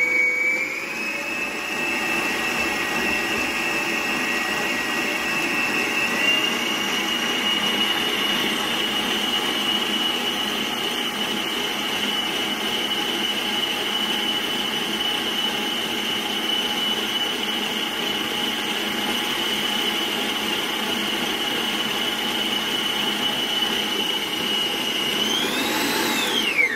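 Arno 600 W planetary stand mixer running with a steady high motor whine, its flat beater working mashed potatoes with cream. The pitch steps up a little about a second in and again around six seconds, rises briefly near the end, then drops away as the motor is switched off.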